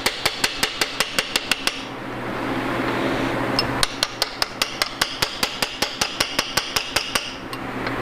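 Hammer tapping a connecting rod cap on a Ford 351 Windsor engine to knock it loose from the rod, in rapid, evenly spaced metal-on-metal taps of about five a second. The tapping breaks off twice for a couple of seconds of scraping noise.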